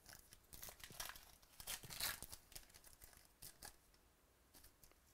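Trading cards and their packaging being handled: soft crinkling and rustling with a quick run of light scrapes and clicks, busiest in the first three and a half seconds and thinning out after.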